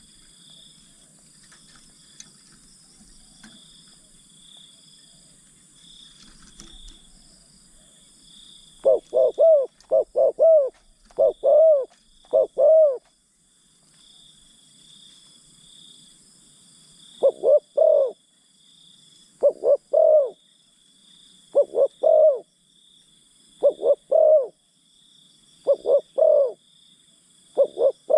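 Spotted dove cooing in repeated coo phrases: a run of them starting about nine seconds in, a short pause, then a phrase about every two seconds. Insects shrill steadily underneath.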